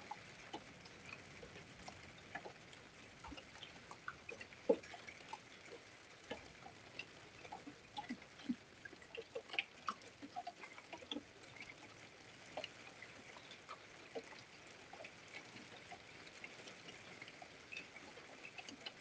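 Light rain: scattered raindrops tapping and dripping at irregular intervals over a faint steady hiss.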